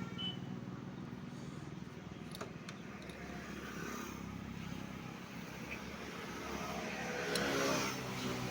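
A motor vehicle's engine running steadily with a low hum, swelling a little near the end, with a couple of light clicks about two and a half seconds in.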